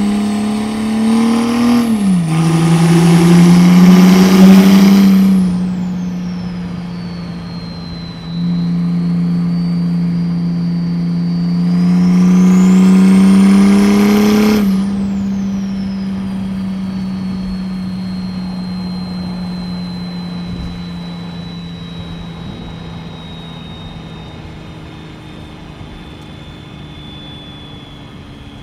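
Mercedes OM606 straight-six diesel with a hood-exit exhaust, heard from inside the cabin, making two hard pulls. The first pull is broken by a gear change about two seconds in. Each pull brings a high whistle that climbs with the revs and falls away after lifting off. Then the engine settles into a steady cruise, growing gradually quieter.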